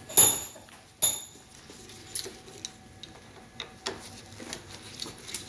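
Metal hand tools clinking against the preload adjuster's metal pump housing during disassembly: two sharp, ringing clinks about a quarter second and a second in, then a few lighter ticks.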